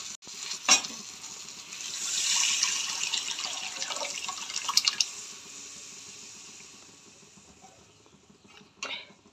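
Cooked chana dal and spinach poured from a steel pot into a hot kadhai of fried spice tempering: a wet, splashing pour with a hiss that swells about two seconds in and dies away over the following seconds. A knock near the start and a few metal clinks of pot and ladle around five seconds in.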